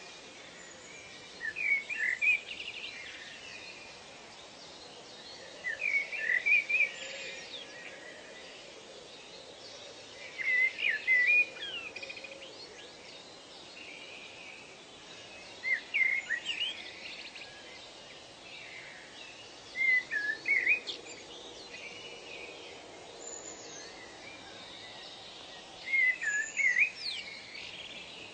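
A songbird repeating a short phrase of quick chirping notes, six times, about every four to five seconds, over a steady hiss of forest ambience.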